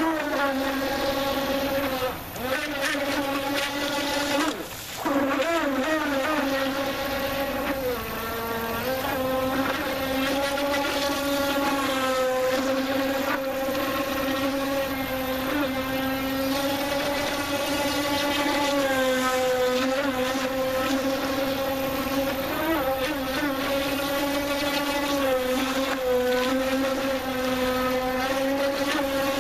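Brushless electric motor of an RC speedboat running at speed, a steady high whine that wavers in pitch as the boat turns. It dips twice briefly in the first few seconds as the throttle eases.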